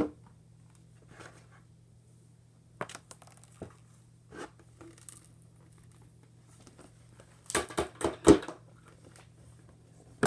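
Slime being handled and pulled apart in a plastic bucket: scattered short crinkling and crackling sounds, with a cluster of louder crackles about three-quarters of the way through.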